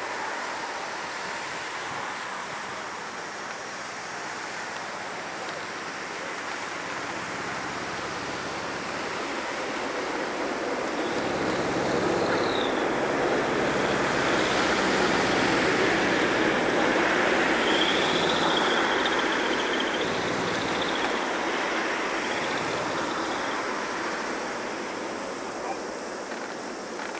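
Boeing 747-400 jet engines passing overhead: a broad rushing roar that swells to its loudest about halfway through and then slowly fades, with a thin high whine and a low hum riding on it near the peak.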